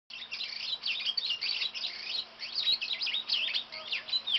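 A bird's rapid, high chirping and twittering: a dense run of quick sweeping notes that starts and stops abruptly.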